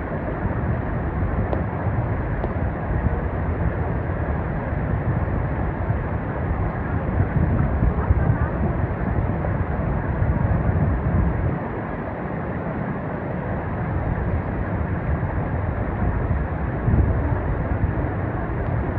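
Stream water rushing steadily over rocks, a continuous dense rush heaviest at the low end.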